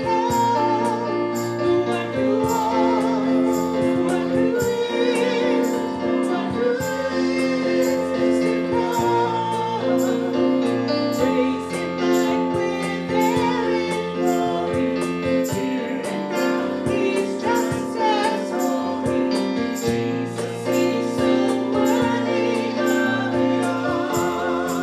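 Church worship music: a woman's voice singing a sustained melody over keyboard accompaniment.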